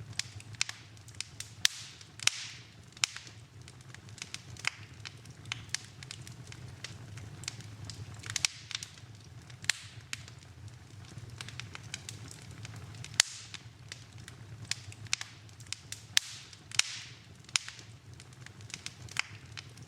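Wood fire burning in a fireplace, crackling with irregular sharp pops and snaps over a low steady rumble of the flames.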